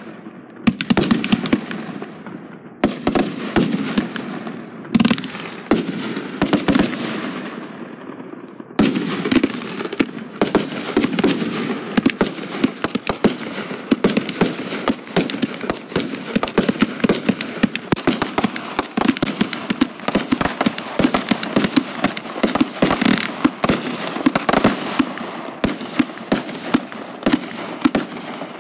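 Aerial fireworks firing in a steady barrage: launch thumps and bursts overhead. In the first several seconds they come as separate booms that ring out. From about nine seconds in they merge into a dense, rapid crackle of many shots a second.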